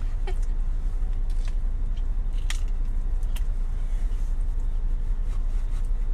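Steady low rumble of a car running, with a few faint clicks.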